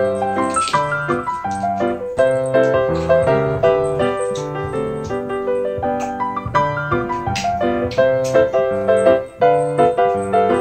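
Background piano music: a steady, light melody of separate struck notes.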